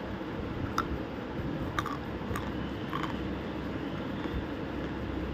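A piece of half-roasted clay crunching: four short, sharp crackles in the first three seconds over a steady low background noise.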